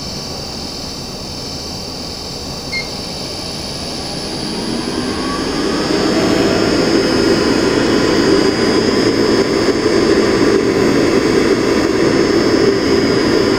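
Kyudensha commercial convection oven's fan motor running, with a short blip about three seconds in. From about four seconds in it speeds up with a rising whine and then runs steadily louder. The motor makes a slight abnormal noise.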